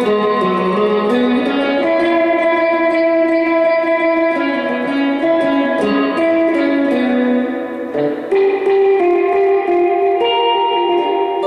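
Fender Jaguar electric guitar played through a Gomez El Sonido Bassman-clone amp with a Nocturne F-Bomb 63 spring reverb unit, picking a single-note melody with long sustained notes. There is a brief drop in loudness about eight seconds in before the next phrase.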